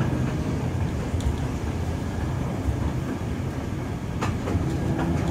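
Classic electric streetcar rolling along its track under power: a steady low rumble of wheels and running gear, with a sharp click about four seconds in.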